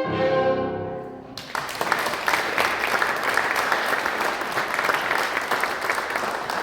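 The final chord of a violin and piano ensemble rings out and fades, then audience applause breaks out about a second and a half in and begins to die down near the end.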